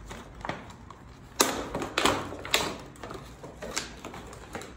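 Hands handling packaging and small parts: a series of sharp crackles and clicks, the loudest about one and a half seconds in.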